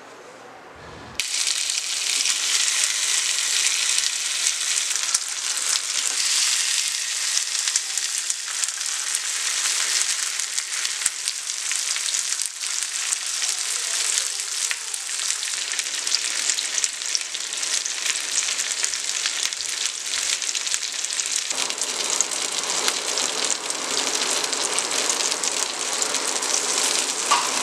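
Marinated paneer tikka skewers (paneer, onion and capsicum) sizzling in a hot grill pan, a steady hiss with fine crackling that starts suddenly about a second in. The sizzle turns fuller about three-quarters of the way through.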